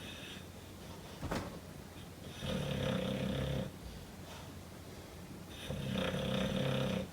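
A sleeping Mastiff snoring: two long snores about three seconds apart, each lasting a little over a second. A short click comes about a second in.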